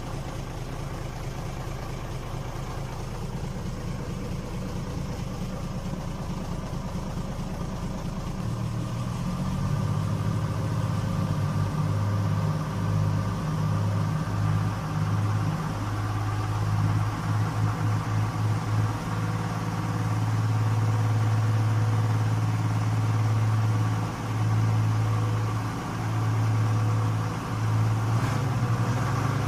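A low, steady engine hum that grows louder about nine seconds in, then wavers up and down in level.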